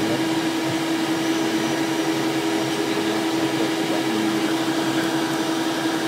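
Cessna Citation Excel's twin turbofan engines at taxi idle, heard from inside the cockpit: a steady hum with one strong even tone.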